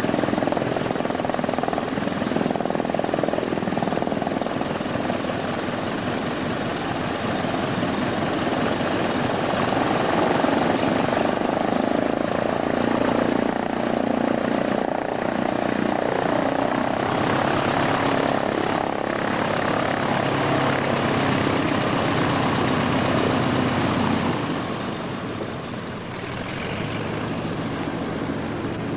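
Boeing Stearman biplane's radial engine and propeller running steadily at taxi power, a little quieter near the end.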